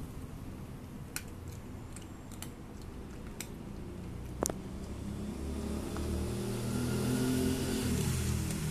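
A cat crunching dry kibble, a few sharp crunches spread out over the first half. From about halfway a passing vehicle's engine swells, becoming the loudest sound, then fades near the end.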